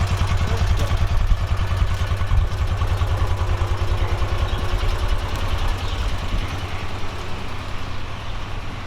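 A motor vehicle's engine running with a rapid, even low throb. It drops slightly in level about six seconds in.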